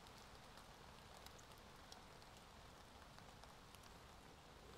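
Near silence: faint outdoor background with scattered light ticks of raindrops falling on leaves.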